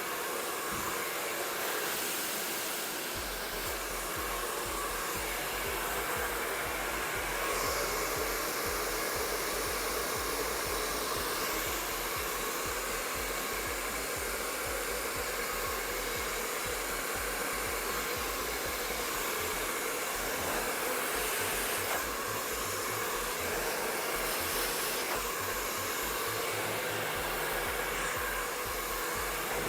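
MQ Pro Digital 2600 W professional hair dryer running steadily, with small shifts in tone from time to time.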